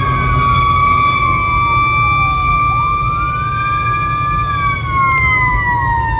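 Fire engine sirens wailing in two tones: one held high note that begins to sink about two thirds of the way in, and a second that rises and falls slowly, over the low rumble of the truck's engine.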